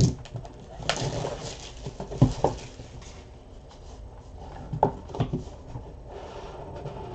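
Cardboard trading-card hobby box being handled and opened: a few knocks as the box is set down and moved, with rustling of its packaging in between.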